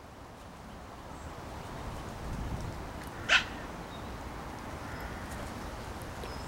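Small Affenpinscher dog giving one short, sharp yap about three seconds in, over a faint low rumble.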